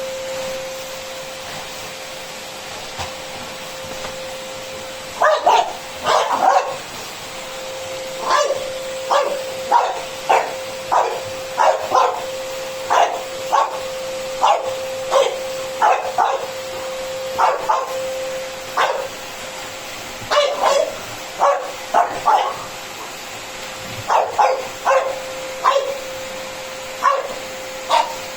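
French bulldog barking in short, repeated barks, about one or two a second with brief pauses, starting about five seconds in. A steady hum runs underneath.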